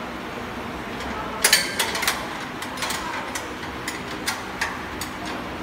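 Sharp metallic clicks and clinks of an Allen key working a bolt on a stainless-steel elevator frame, over a steady background noise. The clicks come in irregular clusters from about a second and a half in, the loudest at the first.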